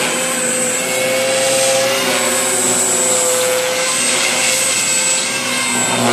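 JR Forza 450 radio-controlled helicopter in flight: its motor and rotor head give a steady high whine that dips slightly and recovers in pitch as it manoeuvres.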